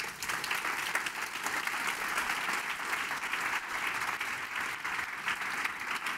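An audience applauding, many hands clapping in a dense, steady wash that breaks out suddenly right after the closing thanks.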